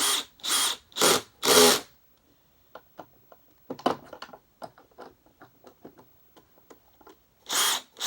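Power drill driving screws in short bursts: four quick runs at the start, one near the middle and more at the end, with small clicks and taps of parts being handled in between.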